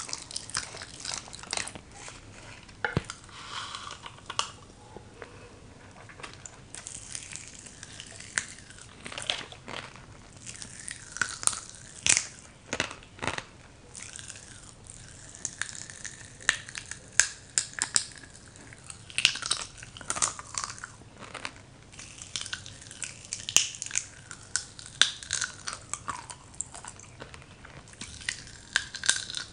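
Crack-Ups popping candy crackling and popping in the mouth: many sharp, irregular pops scattered throughout, with some chewing and mouth sounds.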